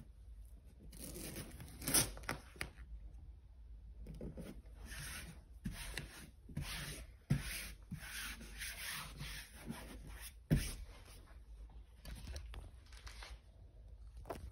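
A hand rubbing and smoothing a repositionable canvas wall decal against a wall, in a series of scraping strokes broken by three sharp knocks as the palm presses it on.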